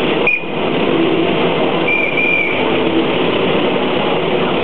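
Fendt 415 tractor's diesel engine running close by, with two short high squeals, the longer about two seconds in.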